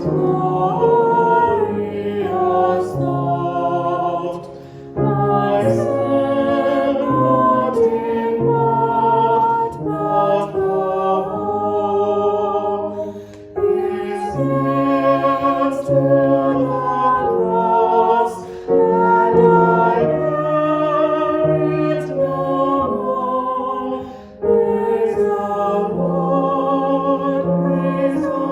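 A hymn being sung, held notes in sung phrases with brief breaks between them.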